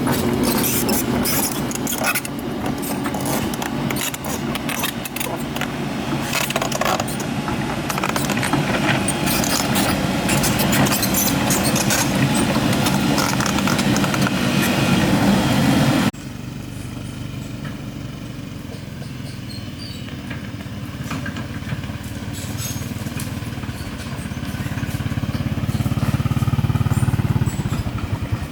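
An engine running, with dense rattling and clicking over it. About sixteen seconds in the sound drops suddenly to a quieter engine, which grows louder again near the end.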